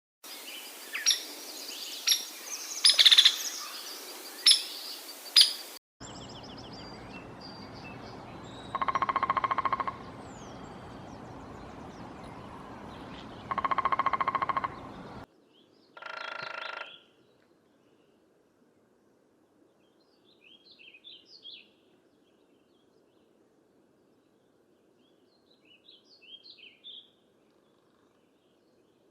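Woodpecker calls from downy and hairy woodpeckers, in several separate recordings. Sharp single call notes come over the first six seconds. Then come two longer calls of about a second and a half each, a shorter one after them, and faint short chirps near the end.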